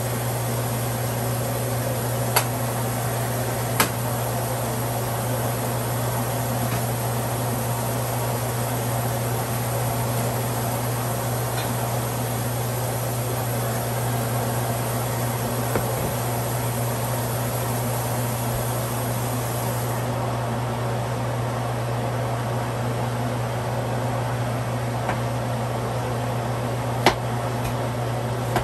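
Steady hum of a running fan with a strong low drone, unchanging throughout. A couple of light clicks come a few seconds in, and a sharp knock near the end, like a knife hitting a cutting board.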